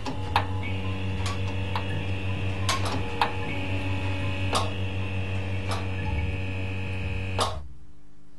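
Ambient soundtrack of a glass sound installation: a steady low hum with irregular sharp ticks and clicks, and a high held tone entering about a second in. It all cuts off abruptly near the end, leaving a fainter hum.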